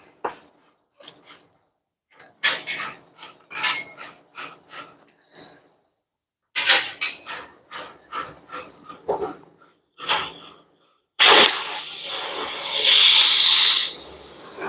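A propane-oxygen cutting torch hissing steadily as its preheat flame heats the steel axle spindle before the cut. The hiss starts abruptly about eleven seconds in and swells briefly. Before it come scattered knocks and handling noises as the torch is made ready.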